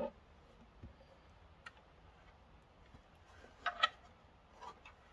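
Wooden panels of a Dobsonian telescope's rocker-box base knocking as the assembled base is handled and flipped over: a few light clicks, then two louder knocks in quick succession about three and a half seconds in.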